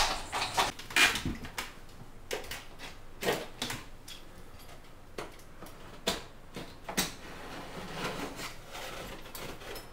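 Thin wall paneling being pulled down by hand, giving scattered sharp knocks and cracks, the loudest right at the start and others about a second, three, six and seven seconds in.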